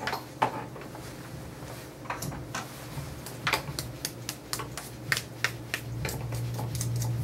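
Plastic guard comb being handled and fitted onto an electric dog clipper that is switched off: a run of irregular sharp plastic clicks and snaps. A low steady hum comes up near the end.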